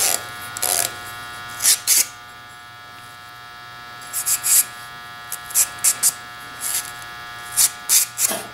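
Short scraping strokes, in irregular groups, of a wire brush being worked in and out of a Coleman stove's fuel generator tube to scrub out gunk, over a steady electrical hum.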